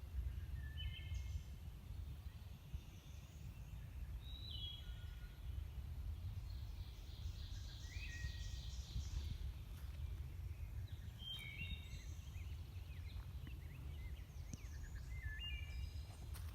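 Hermit thrush singing: five separate flute-like phrases, each opening on a held note and then breaking into higher, quicker notes, repeated every few seconds at a different pitch, over a steady low rumble.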